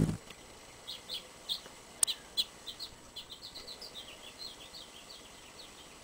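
Hummingbird chirping: a run of short, high chips that come faster through the middle and thin out near the end, with one sharp click about two seconds in.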